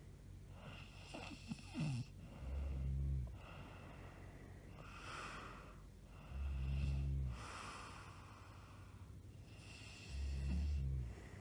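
A woman snoring in her sleep: three deep, loud snores about four seconds apart, with softer hissing breaths between them. About a second in there are a few short, squeaky gliding whistles.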